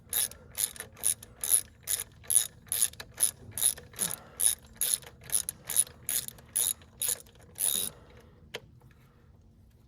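Ratchet wrench worked back and forth in short, even swings, each swing a quick burst of pawl clicks, about two and a half a second. The swings stop near the end, with one more click after them.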